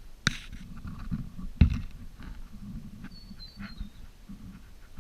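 Two sharp knocks, the second, about a second and a half in, louder than the first, over a low rumble; a short high wavering chirp follows a little past the middle.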